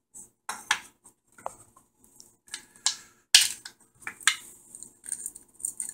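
3D-printed plastic parts clicking and knocking against each other as they are handled and fitted together by hand: irregular short, sharp clicks and taps.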